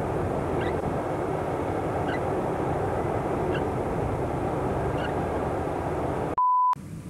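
UAZ off-road vehicle's engine running steadily as it crawls through a muddy, water-filled rut, with faint chirps every second or so. Near the end a short steady beep is edited in, blanking all other sound, like a censor bleep.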